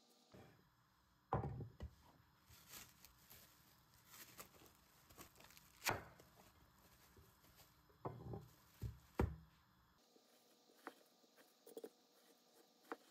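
Quiet food-prep handling noises: a few scattered knocks and thuds as a glass dish of chicken mixture and its plastic wrap are handled, loudest a little over a second in and around six and nine seconds. Fainter small ticks follow near the end as a knife cuts the mixture on a wooden board.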